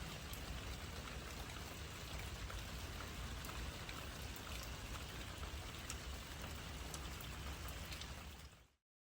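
Steady rainfall, with scattered individual drops ticking on a surface, fading out shortly before the end.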